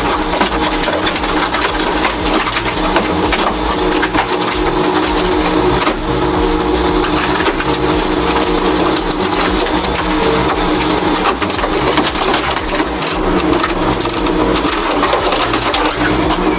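Heavy machinery running steadily, a continuous hum over a dense grinding noise.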